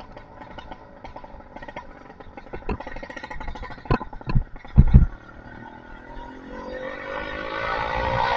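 Small two-stroke engine with a 52 mm one-ring piston and a Master Blaster muffler running at low revs with an uneven popping, a few loud thumps near the middle, then revving up with a steadily rising pitch as the bike pulls away from about six seconds in.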